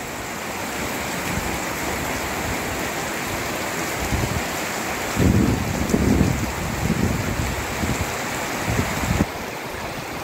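Heavy monsoon rain falling steadily, a dense even hiss, with a few brief low rumbles about halfway through.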